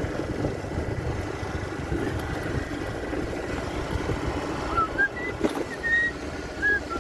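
A vehicle travelling on a road: an uneven low rumble of engine and road noise throughout. From about five seconds in there are a few short, high, rising chirps.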